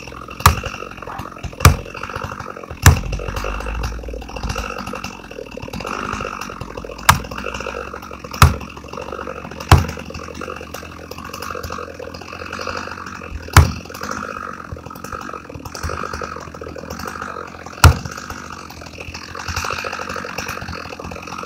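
Axe blows against the base of a Douglas fir trunk: eight sharp strikes, three in quick succession, three more, then two single blows. Under them a Stihl MS 462 chainsaw idles steadily.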